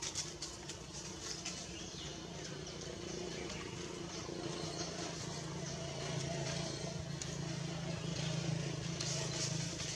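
A vehicle engine humming steadily, louder in the second half and dropping off near the end, with a few light clicks in the first second.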